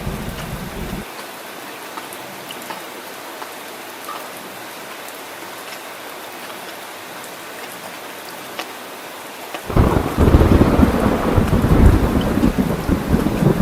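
Steady heavy rain, with rolling thunder. A low thunder rumble cuts off abruptly about a second in, leaving only the rain hiss, and a loud rumble of thunder breaks in suddenly near the end.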